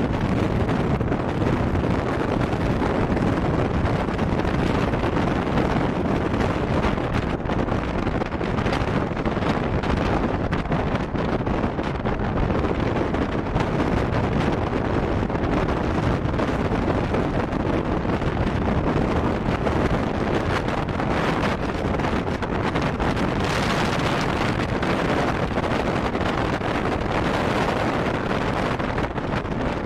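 Passenger train running steadily, heard from on board: an even rush of wheel and track noise with wind buffeting the microphone.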